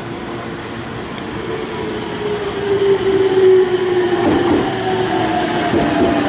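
Meitetsu electric train pulling in along the platform, growing louder from about two and a half seconds in, with a motor whine that falls steadily in pitch as it slows.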